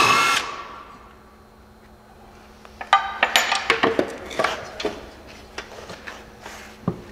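A cordless impact wrench buzzes on the pulley nut of a mower deck spindle and stops just after the start. After a quiet couple of seconds comes a run of sharp metallic clinks and rattles as the loosened steel deck pulley is handled, with scattered clicks after.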